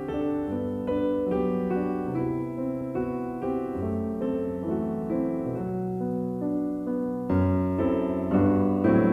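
Background piano music, a gentle melody over held chords.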